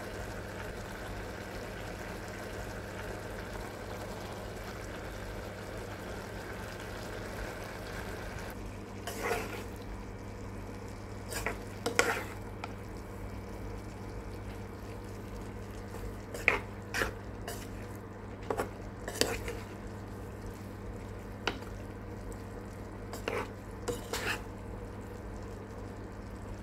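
A spatula stirring cauliflower curry in a nonstick pan, with a scatter of short scrapes and knocks against the pan from about a third of the way in, over a steady low hum.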